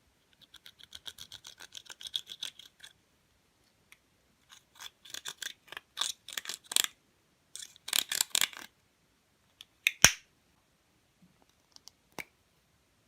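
Slime being worked in the hands, giving three runs of quick clicking pops of about eight a second, then a few single sharp pops, the loudest about ten seconds in.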